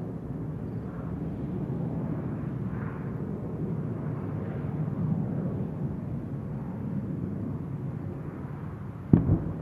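Steady low drone of aircraft overhead. About nine seconds in comes a sudden loud double boom of a distant explosion.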